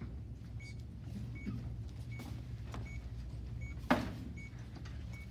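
Short high electronic beeps from a medical monitor, repeating evenly about every three-quarters of a second over a steady low hum, with one sharp knock about four seconds in.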